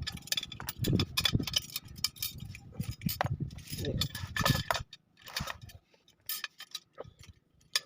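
Loose steel wheel spokes clinking and rattling against each other and the rim as they are handled and laced into a motorcycle wheel, in irregular light metallic clicks that thin out after about five seconds.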